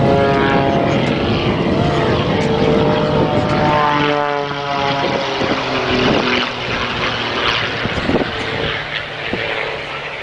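Aerobatic biplane's propeller engine, its note rising and falling repeatedly through the manoeuvres, fading somewhat near the end.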